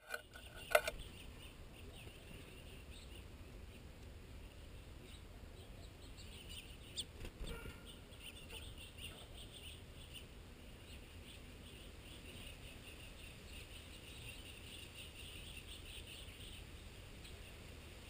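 Small songbirds calling with short, quick chips and twitters, thickest in the second half, over a low steady outdoor background; a single sharp click about a second in.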